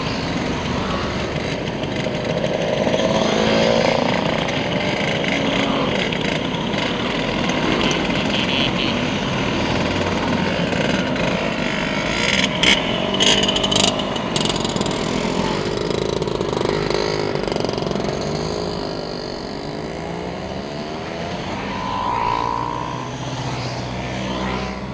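Vintage two-stroke Vespa scooters riding past one after another, their engine notes rising and falling as each passes. A few short loud sounds stand out about halfway through.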